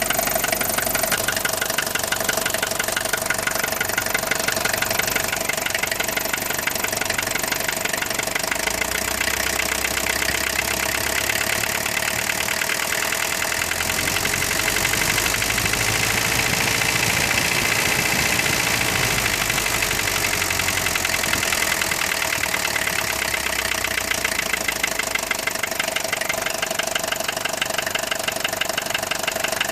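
Mercedes-Benz OM615 four-cylinder diesel engine running with a steady rhythmic knock, the knock its owner is recording. The revs rise and fall once around the middle.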